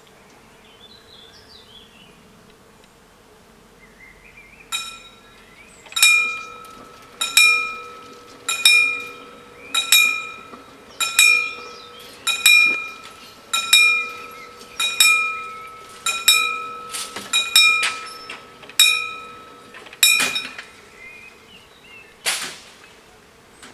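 Level-crossing warning bells striking repeatedly, about once every second and a quarter, each stroke ringing and fading, sounding while the barriers lower to close the road. Near the end two bells fall out of step, then they stop, and one loud clunk follows shortly after.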